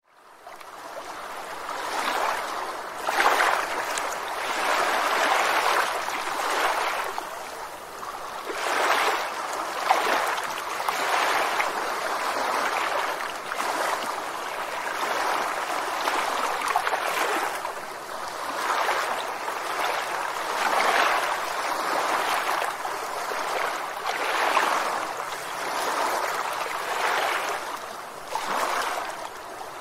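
River water flowing and splashing over rocks, a continuous rushing that swells and eases every second or two; it fades in at the start.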